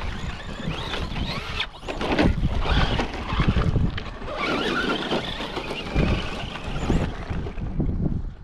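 Radio-controlled trucks driving, their motor sound rising and falling irregularly, with wind noise on the microphone.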